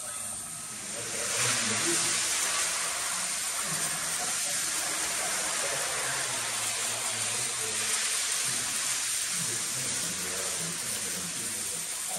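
Hose spray gun hissing as it sprays water over the milking units to rinse them; the spray starts about a second in and then runs steadily.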